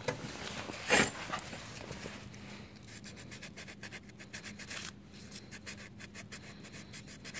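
Hand sanding with a small piece of sandpaper on the scooter's black-painted part: quick, irregular rubbing strokes that scuff the chipped spots smooth for primer. A single short, louder bump about a second in.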